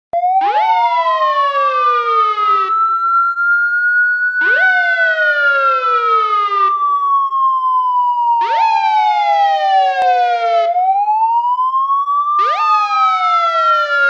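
Police siren sound effect: a slow wail that rises over about five seconds, falls back over the next five, then rises again. Layered over it, a second siren tone jumps up and glides down over about two seconds, repeating every four seconds.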